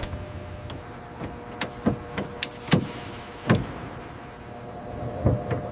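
Steady mechanical hum with a series of sharp metallic clicks and knocks at irregular intervals, typical of tools and fittings being worked on aircraft controls.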